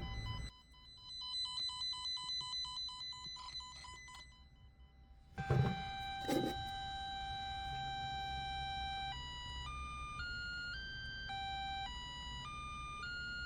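Klein VDV500-705T cable toner sounding its test tone: first a rapid electronic beeping at about four beeps a second, then, after two knocks, a steady piercing tone that turns into a stepping up-and-down warble, like an alarm.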